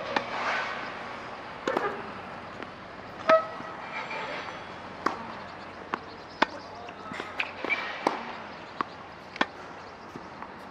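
Tennis balls being struck with rackets and bouncing on the court: a string of sharp, irregularly spaced knocks, more than a dozen.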